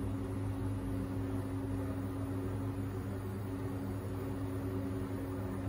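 Kitchen range hood extractor fan running with a steady hum.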